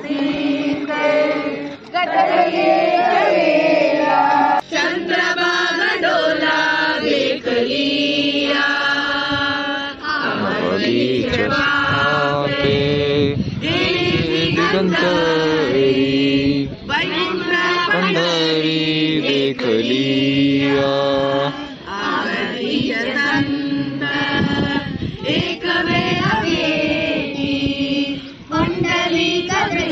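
A group of voices chanting a devotional song in unison, in long held phrases with short breaks between them.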